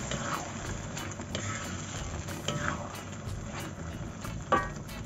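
Sauce simmering and bubbling in a metal wok as a spatula stirs through it, with light scrapes and clicks of the spatula on the pan and one sharp knock about four and a half seconds in.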